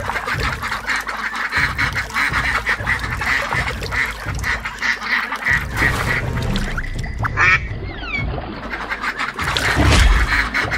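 Ducks quacking in a quick run of repeated calls, dubbed in as a sound effect for toy ducklings. About nine and a half seconds in, a deep, heavy thud and rumble comes in and is the loudest part.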